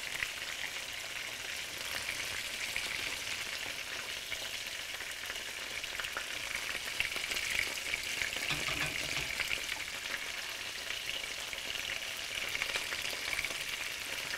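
Flour-dredged chicken tenders shallow-frying in hot oil in a pan: a steady crackling sizzle full of fine pops.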